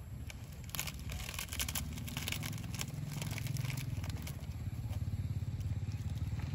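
Plastic noodle packet crinkling and dry instant noodles crunching as a long-tailed macaque bites into them, with a dense run of crackles in the first few seconds. A steady low rumble grows underneath from about two seconds in.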